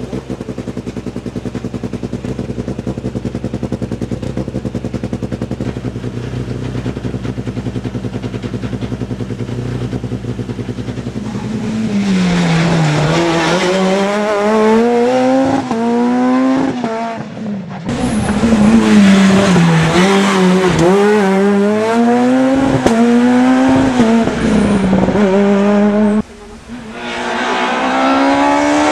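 A rally car engine idling steadily with a fast, even throb. From about twelve seconds in, Peugeot 207 rally cars rev hard up and down through the gears as they accelerate past, with two brief breaks in the sound.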